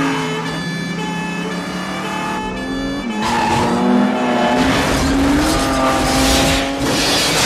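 Car chase sound: car engines revving hard at high speed, with tyres screeching from about three seconds in and a police car crashing and rolling over near the end.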